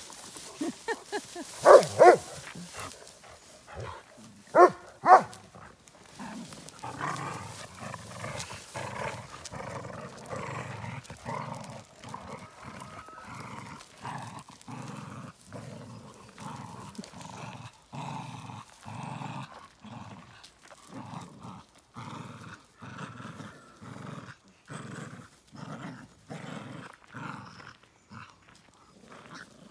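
Dogs playing tug of war over a toy ball: a few loud barks, two pairs in the first seconds, then steady play-growling that pulses in a rhythm of about one to two growls a second as the dogs pull.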